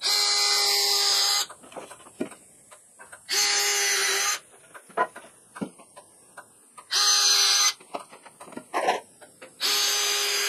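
Cordless drill boring pilot holes into a wooden board: four runs of a second or so each, the motor's steady whine starting and stopping, with light clicks and knocks of handling between runs.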